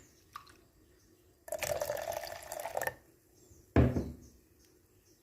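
Water poured into a vessel holding ground herb-leaf paste, splashing for about a second and a half, followed by one sharp knock.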